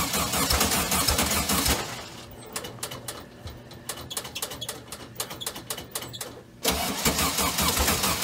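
Car engine running loud with a fast, uneven pulse. A little under two seconds in, the sound drops to a quieter stretch of irregular clicks and ticks. About six and a half seconds in, the engine starts abruptly and runs loud again.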